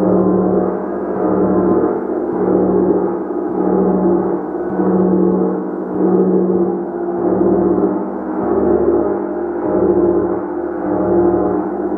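Gong ringing continuously, kept going by steady repeated strokes, so its deep, dense hum swells and eases about once every second or so.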